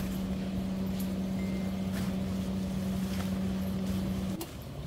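A motor's steady drone, one constant hum over a low rumble, that cuts off suddenly shortly before the end, with a few faint clicks.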